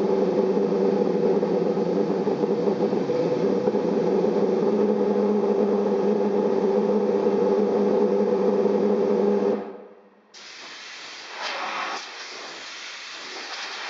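Homemade valved pulse jet engine running with a loud, steady buzzing drone, kept going by air blown into it because it cannot yet sustain itself. It cuts out suddenly about ten seconds in, followed by quieter hissing rushes of air.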